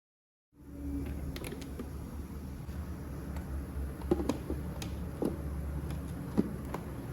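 A few light clicks and knocks over a steady low hum, which starts about half a second in.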